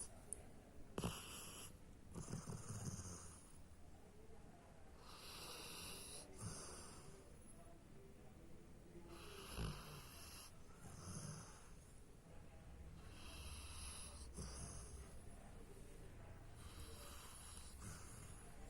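Labrador retriever snoring quietly in its sleep. Slow breaths come every few seconds, each with a breathy hiss and a low rattling snore.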